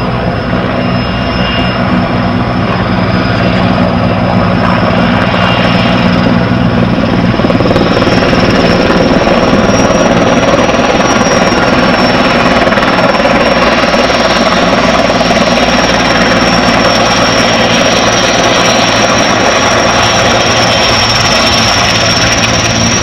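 Helicopter running close by: a loud, steady rotor and engine noise with a high whine that rises slightly in pitch and grows a little louder about eight seconds in.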